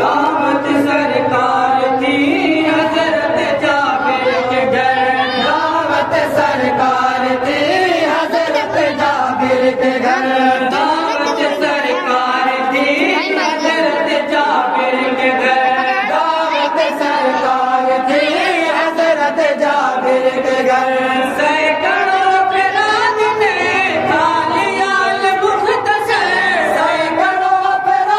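Group of men chanting a melodic verse together in unison, with one voice leading at a microphone.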